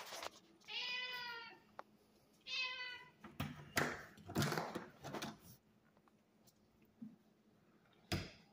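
A domestic cat meows twice, each meow short with a clear pitch, in the first three seconds. Then comes a couple of seconds of shuffling and handling noise, and near the end a sharp click as a brass doorknob is grasped and turned.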